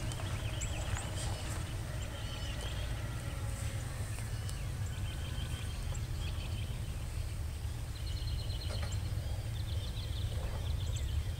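Small birds chirping and twittering in short, quick calls over a steady low rumble of outdoor background noise.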